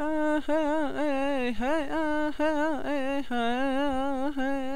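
One voice humming a slow, wordless tune of long held notes with vibrato.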